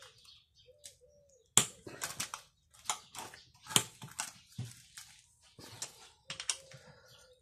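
Irregular sharp metal clicks and scrapes of a Torx bit being worked against tight, seized bolts in a pump's aluminium housing, the loudest about a second and a half in and near four seconds.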